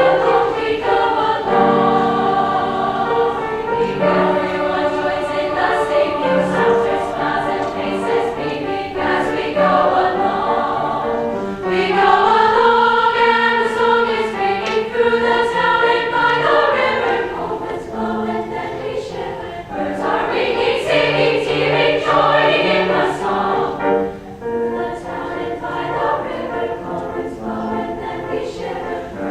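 A choir singing in several parts, holding and changing chords, swelling loudest about twelve seconds in and again about twenty seconds in.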